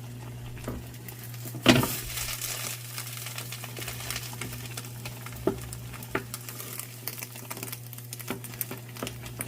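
Egg for a rolled omelet sizzling and crackling in a frying pan, with one sharp knock about two seconds in and scattered small clicks after it, over a steady low hum.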